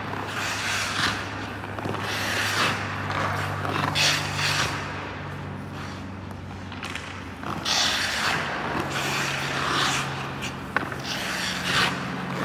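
A hockey goalie's skate blades scraping across the ice in a series of short pushes, one to three seconds apart. A steady low hum runs underneath.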